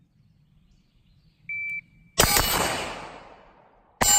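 A shot timer beeps once, then a 5.56 mm Knight's SR-15 carbine fires a shot and, about two seconds later after the transition, a 9 mm Glock 19 fires; each gunshot is very loud and trails off in a long echo.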